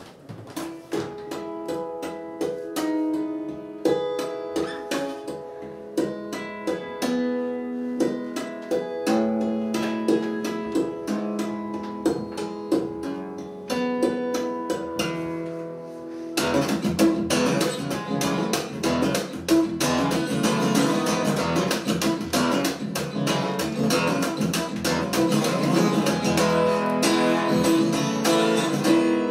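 Solo acoustic guitar: separate picked notes and chords ringing out slowly, then a little past halfway the playing turns suddenly louder and denser, with fast strumming.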